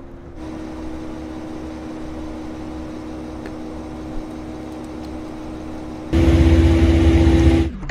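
Steady mechanical hum with a low drone over a hiss. Near the end it suddenly turns much louder and deeper for about a second and a half, then cuts off abruptly.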